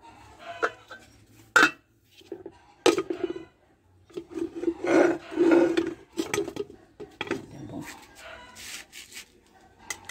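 Aluminium pots, lids and a utensil knocking, clinking and scraping on a wood-burning stove as the pots are covered and handled: a run of sharp knocks and clinks with stretches of scraping in the middle.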